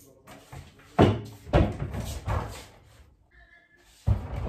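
A fridge door handled and a foil-wrapped dish put inside: a series of knocks and thumps, the loudest about a second in and another near the end.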